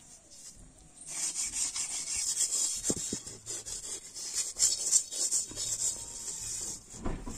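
Bare hands smearing wet mud over the outside of a round clay pot: a scratchy rubbing in repeated strokes that starts about a second in, with a couple of dull knocks.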